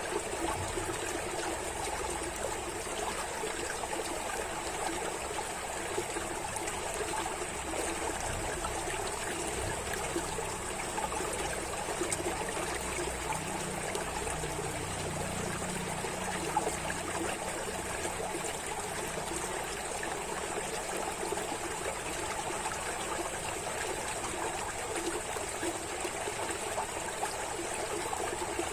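Running water flowing steadily with a continuous trickling, stream-like sound, even and unbroken throughout.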